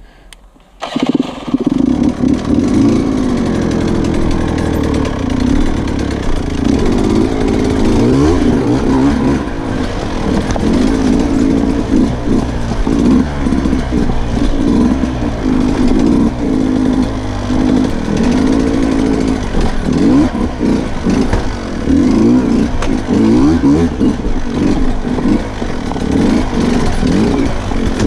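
Sherco 125 two-stroke dirt bike engine firing up about a second in, then running loud with the throttle repeatedly blipped and eased, its pitch rising and falling as the bike climbs and rides a rough trail.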